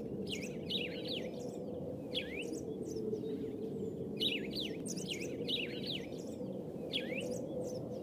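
Birds chirping in clusters of quick, falling chirps every second or two, over a steady low background hum.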